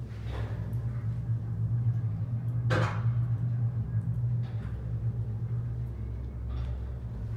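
Panoramic glass lift cabin running up its shaft: a steady low hum, with a few short knocks or clunks, the loudest about a third of the way in.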